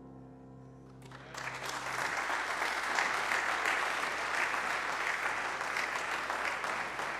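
The last held chord of the keyboard accompaniment dies away, and about a second in the congregation breaks into applause that continues steadily.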